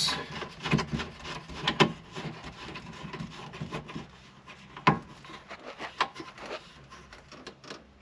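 White plastic elbow fitting being screwed by hand onto an RV water heater's new check valve: irregular rubbing and creaking of the plastic threads and fitting, with a few sharp clicks, the loudest about a second and about five seconds in.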